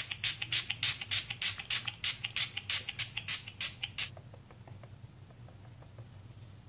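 A fast, even run of sharp, thin, high clicks, about five a second, stopping about four seconds in; after that only a faint low hum remains.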